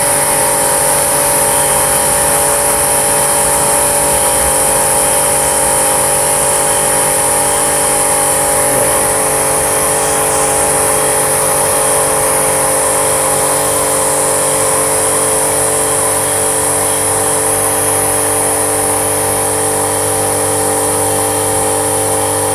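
Vantro 1800 W high-pressure washer's motor and pump running steadily with the gun spraying, as its pressure control knob is turned down to lower the output pressure.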